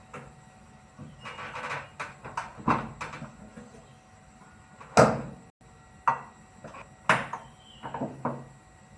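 Irregular clanks, knocks and a short scrape from parts and tools being handled while a front-loading washing machine is taken apart. The loudest knock comes about five seconds in.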